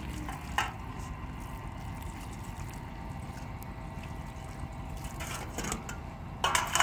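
Running water, with a few sharp clicks and knocks, a cluster of them near the end.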